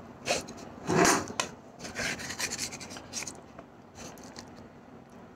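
A serving utensil scraping and rubbing against the inside of an aluminium pot in several short strokes as soft, milk-soaked bread halwa is lifted out. The loudest scrape comes about a second in.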